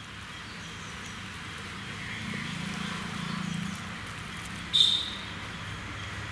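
Birds chirping in the background, with one loud, short, high chirp about five seconds in, over a low hum that swells and fades in the middle.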